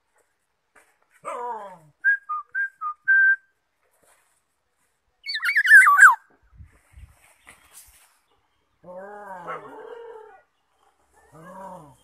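Black-naped oriole calling: nasal, falling mew-like calls at the start, near the end and once more at the very end, a run of five clear whistled notes about two seconds in, the last one held longest, and a loud harsh descending call a little past the middle.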